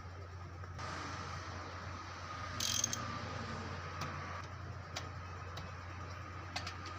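Mechanical work sounds: a few sharp metallic clicks and a short, louder scrape or clank about three seconds in, over a steady low hum.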